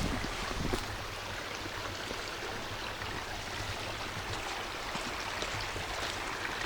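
Creek water running steadily, an even rushing sound, with a couple of light knocks in the first second.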